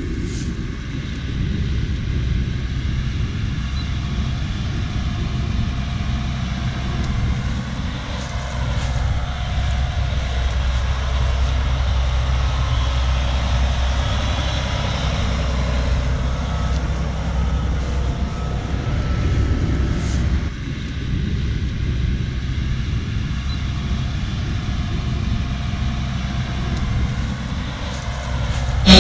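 Heavy harvest machinery running steadily, a deep engine drone that dips briefly about two-thirds of the way through.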